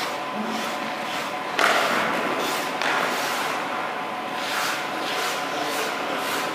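Hockey goalie's skate blades scraping and carving across the ice through a series of pushes and stops, with sharp scrapes about one and a half seconds and just under three seconds in.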